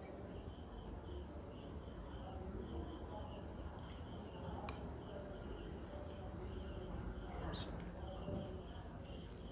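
Faint insect chirping, a steady pulse about twice a second, with a couple of soft clicks.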